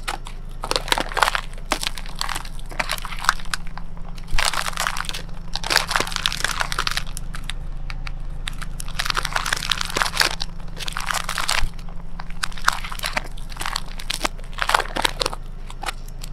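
Folded paper boats crunching and crinkling under a car tyre as it rolls over and flattens them, in repeated spells of crackling over a steady low hum.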